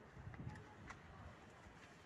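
Near silence: faint outdoor background with a soft low rumble early on and a couple of faint clicks.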